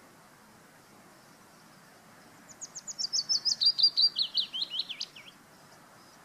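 Willow warbler singing one song phrase: a quick run of notes that falls steadily in pitch, lasting a little under three seconds and starting about two and a half seconds in.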